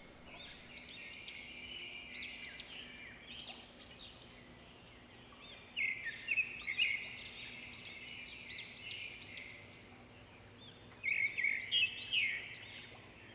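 Small birds chirping and calling in quick repeated notes, with louder clusters of calls about six seconds in and again near the end.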